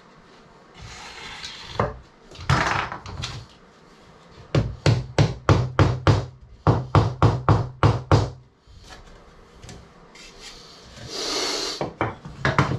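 Wood being knocked in a fast run of about sixteen strikes, roughly four a second, with a short break in the middle. Brief rubbing sounds of wood come before and after.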